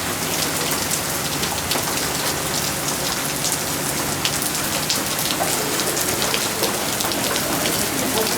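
Heavy rain pouring down steadily, a dense hiss with many sharp ticks of drops striking hard surfaces.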